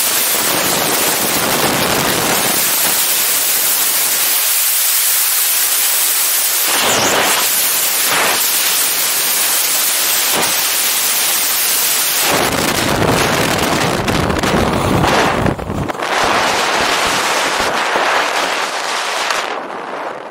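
Freefall wind rushing and buffeting hard against the camera's microphone. Near the end it falls away suddenly as the parachute opens and the fall slows.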